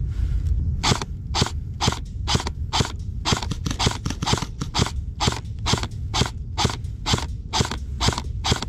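Airsoft gun fired in a steady string of single shots, about two to three a second, starting about a second in, over a low rumble of wind and handling noise on the microphone.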